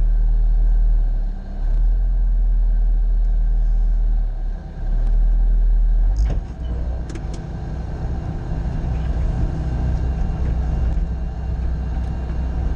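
Bobcat skid-steer's diesel engine running with a steady low rumble. About six seconds in there are a couple of sharp clicks or knocks, after which the rumble turns rougher and more uneven.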